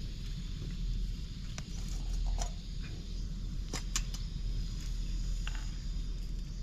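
A few light clicks and taps as a glass bowl and a steel dish are picked up and handled, over a steady low rumble.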